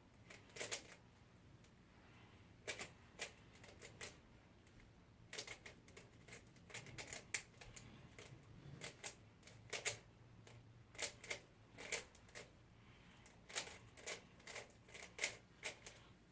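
A 3x3 Rubik's cube being speed-solved by hand: its plastic layers click as they are turned, in quick irregular runs of clicks with short pauses between them.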